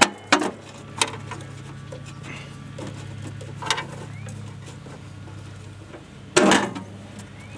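Scattered clinks and knocks from hands and a tool working on metal parts in a skid steer's engine bay, with the loudest cluster near the end, over a steady low hum.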